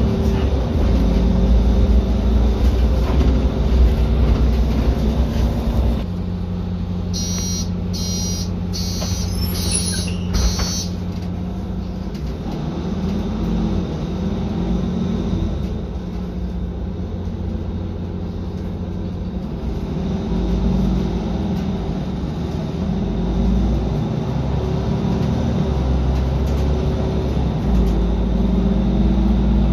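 Mercedes-Benz Conecto city bus heard from inside the passenger cabin: the diesel engine and drivetrain run steadily, settle lower about six seconds in, and pick up again from about twenty seconds. Five short high-pitched electronic beeps sound between about seven and eleven seconds in.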